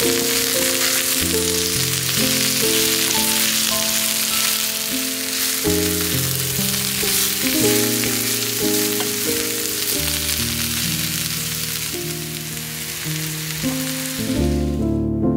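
Food frying in hot oil in a pan, a dense steady sizzle that cuts off abruptly near the end, over gentle background music.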